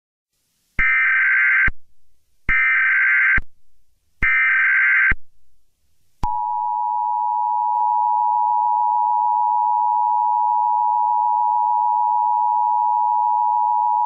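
Emergency Alert System tones: three buzzy data bursts of the SAME header, each just under a second long with short gaps, then from about six seconds in the steady two-tone EAS attention signal.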